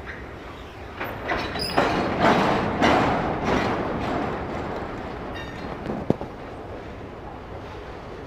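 Freight train of autorack cars rolling past, its wheels clattering and rumbling on the rails, louder for a few seconds about a second in before settling back. A single sharp click about six seconds in.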